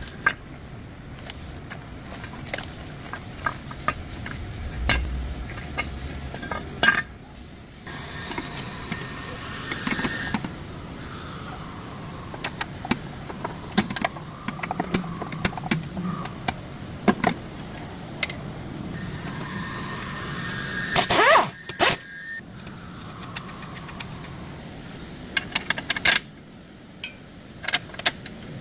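Metal tools and car suspension parts clinking and knocking during control-arm work, with a steady whir twice for a couple of seconds, the second time ending in a loud burst.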